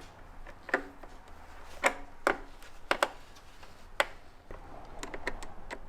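Sharp clicks and knocks of tools and hard parts being handled, about six spread over the first four seconds, then a few lighter ticks near the end.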